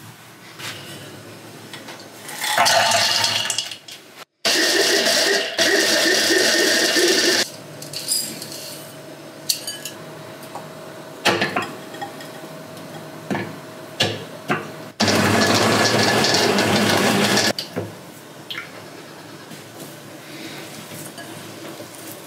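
Electric mini chopper grinding nuts and dates, running in three bursts of a few seconds each, with clicks and clinks of the bowl and lid between them. Near the end, quieter crumbly rustling as hands knead the ground mixture in a glass bowl.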